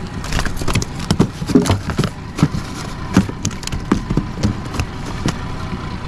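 A quick, irregular string of sharp knocks and clatters, more than a dozen over about five seconds, over the steady hum of a boat's outboard motor.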